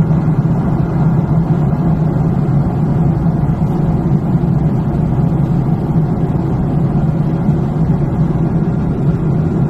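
Steady drone of a jet airliner's engines and rushing air heard inside the cabin during the descent to land, with a strong low hum under it.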